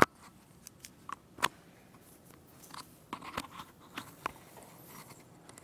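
Handling noise of a clip-on lapel microphone being passed over and fastened to a hoodie collar: irregular clicks, rubs and scrapes, with the sharpest click right at the start.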